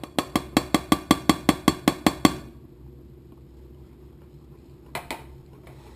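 Metal balloon whisk beating cornstarch into chocolate batter in a mixing bowl, its wires knocking the side of the bowl in a fast, even rhythm of about six strokes a second, stopping after about two seconds. A few more knocks come about five seconds in.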